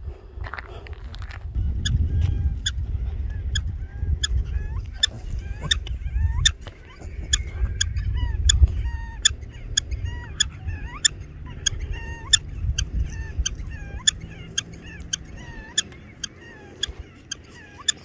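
Black-tailed prairie dogs giving sharp chirping barks over and over, about two a second, the rapid call run of a prairie dog alarm. A low buffeting rumble on the microphone is louder than the calls for the first half and again briefly later.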